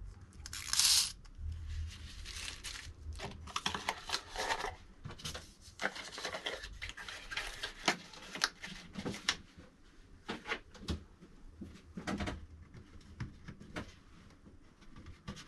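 Packaging being handled during an unboxing: a short rip of tearing material about a second in, then rustling with many small clicks and knocks as parts are moved.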